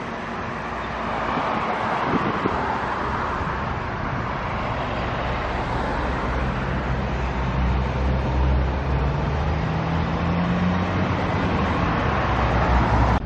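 Diesel bus engine running close by with road traffic noise. It grows louder and its note rises slightly toward the end, as if pulling away, then cuts off suddenly.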